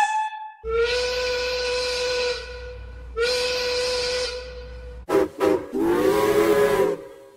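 Steam locomotive whistles. A single-note whistle gives two long blasts of about a second and a half each, with steam hiss under them. From about five seconds in, a lower chime whistle sounding several notes at once gives two short toots and then a longer blast.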